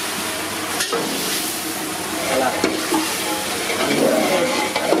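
Food sizzling in hot oil in a large pan as it is stirred, with a steady high hiss and a few sharp knocks of the utensil on the pan.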